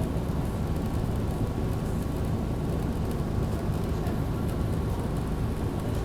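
Cabin noise inside a 2010 Orion VII NG city bus: a steady low rumble from the engine and running gear, with the hiss of the ventilation fan on top.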